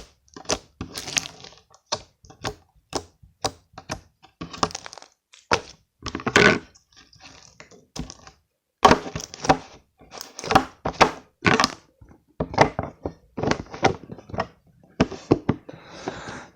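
Slime being squeezed and poked by hand: a run of sharp pops and clicks, about two or three a second, with a short lull about eight seconds in.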